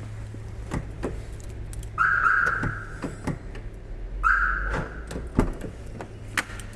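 Car warning chime sounding twice, each tone about a second long and fading, a couple of seconds apart, with light clicks of keys and handling around it.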